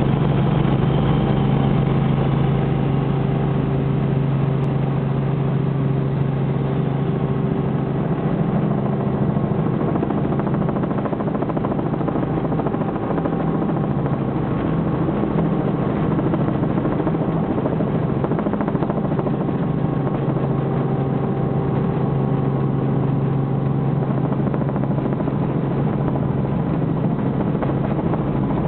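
Robinson R44 Raven helicopter in flight, heard from inside the cabin: the engine and rotors make a loud, steady drone with a strong low hum.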